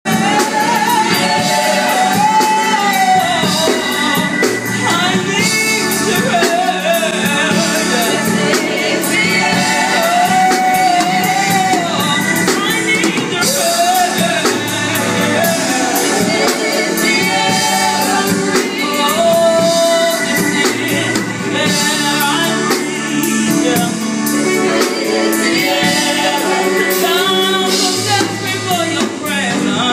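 A small gospel vocal group singing together into handheld microphones through a PA, a lead voice with vibrato carrying the melody over the group's sustained harmonies.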